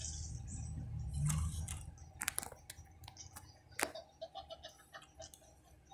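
White plastic DVD case being handled: a low rumble for the first two seconds, then light clicks and taps of the plastic, the sharpest about four seconds in.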